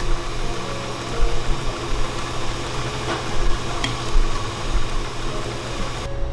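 Steady hum and hiss of kitchen machinery running, with a single light click just before four seconds in.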